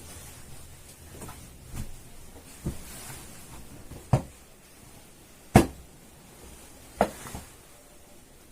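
A series of about six separate knocks and clunks, unevenly spaced, the loudest about halfway through: things being handled and set down.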